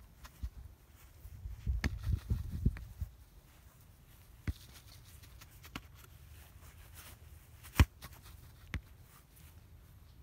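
Soccer ball passed back and forth and trapped with the inside of the foot on grass: a handful of short, sharp thuds of foot striking ball, the loudest about eight seconds in. A brief low rumble around two seconds in.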